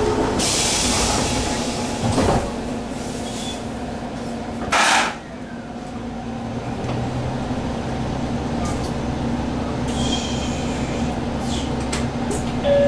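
JR Kyushu 817 series electric train at a station stop: short hisses of air, then a low hum and faint whine from its inverter-driven traction motors build up as it starts to pull away.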